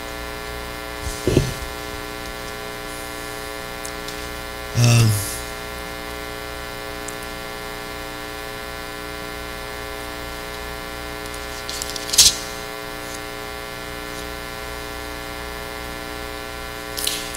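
Steady electrical mains hum with many evenly spaced overtones, from the church sound system's amplifiers and speakers. A brief noise comes about five seconds in, and a sharp click about twelve seconds in.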